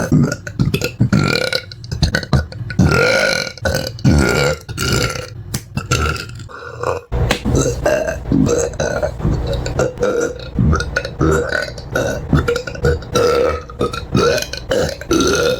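A person belching over and over, one short burp after another in quick succession, with a brief pause about halfway through.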